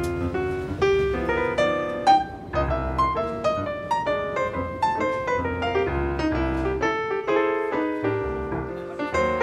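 Background piano music: a steady run of struck notes, several a second.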